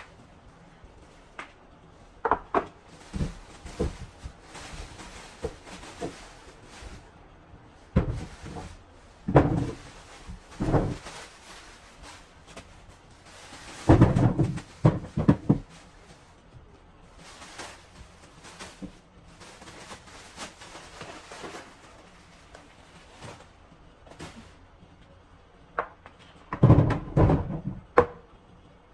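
Scattered knocks and clatters of things being handled and set down in a kitchen, coming in several bunches, the busiest about halfway through and near the end.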